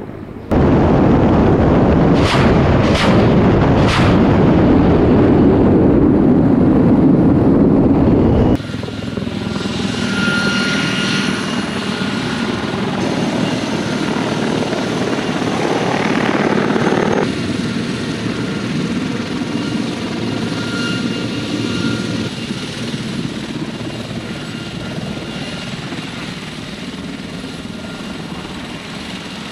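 Helicopter rotor and turbine noise in several clips joined with abrupt cuts. The first stretch is a very loud rushing noise with three short sharp clicks. After that comes the running noise of Mi-28N attack helicopters, their rotors with a steady high turbine whine, in flight and then on the ground.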